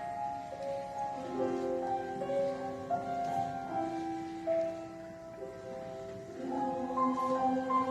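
Piano playing a slow classical introduction of held chords under a moving melody, softer in the middle and growing louder near the end.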